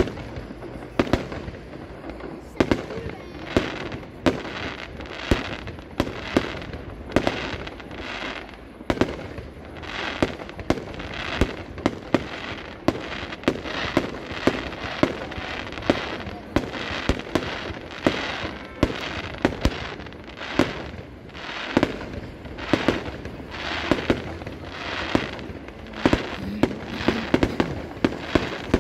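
Aerial fireworks shells bursting in a continuous display, with sharp bangs about one or two a second. Each bang is trailed by a brief crackling fizz.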